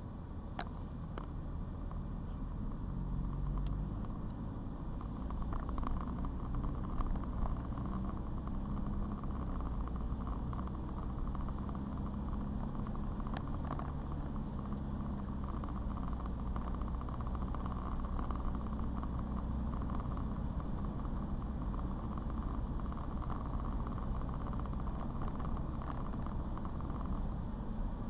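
Car driving on a wet road: a steady engine hum under tyre and road noise, growing louder over the first few seconds as the car gathers speed, then holding steady.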